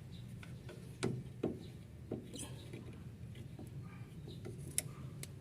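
Toyota 7K engine idling with a low steady hum, with several sharp clicks and knocks over it. The idle is the fault being chased, which the mechanic says sounds far higher than normal, around 2,000 rpm.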